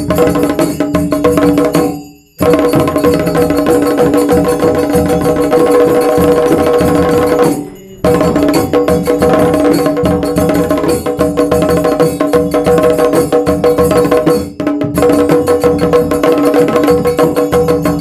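Shamel drum beaten with two thin sticks in fast, dense strokes, with other drums of the ghumat aarti ensemble playing along. The sound cuts out briefly about two seconds in and again about eight seconds in.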